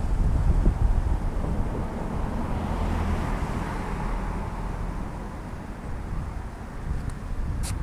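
Wind buffeting a camera microphone: an uneven low rumble with a hiss over it. A brief sharp click comes near the end.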